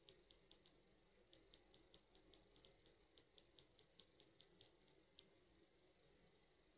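Near silence with faint, quick high-pitched ticks, several a second and unevenly spaced, which stop about five seconds in, leaving a faint hiss.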